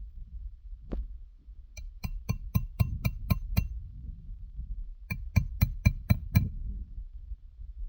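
Hammer driving roofing nails into shingles: one light tap, then seven quick ringing strikes, a short pause, and six more, about four a second.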